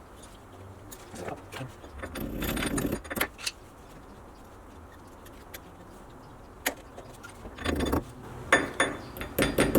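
Light metallic clinks and jangling from hand tools and small steel parts being handled, as a cotter pin is fitted through the castellated axle nut. It comes as irregular clicks and short rattles, in two busier stretches: one about two seconds in and one near the end.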